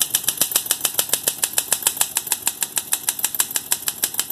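Olympia Deluxe manual typewriter being typed on: a rapid, even run of keystrokes, each type bar striking the platen with a sharp click.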